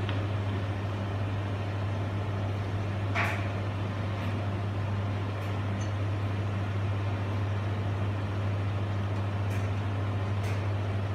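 Heavy diesel engine running at a steady speed, a constant low drone, with a single sharp knock about three seconds in.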